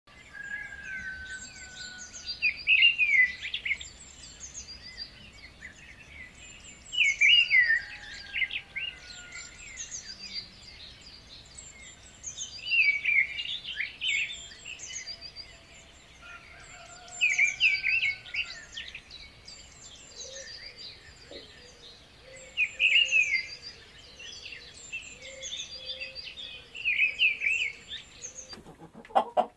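Birdsong: a bird repeats a short burst of quick chirps about every five seconds, with fainter high twittering from other calls between.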